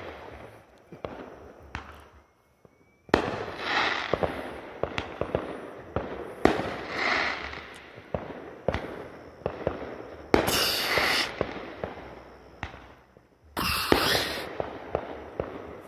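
Aerial fireworks going off: loud bangs about 3, 10 and 13 seconds in, each followed by a few seconds of many sharp crackling pops.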